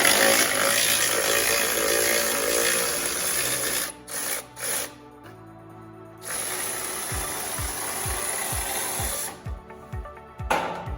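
Impact wrench running in two long bursts, about four seconds and then about three seconds, with a short pause between. Background music with a thumping beat comes in about seven seconds in.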